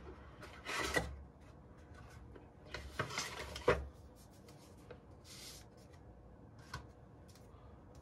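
Cardboard and paper packaging handled during an unboxing: a cardboard insert scraped and slid out of its box in two rustling stretches, about a second in and again around three seconds, then a shorter rustle and a single light tap as a paper leaflet is taken out.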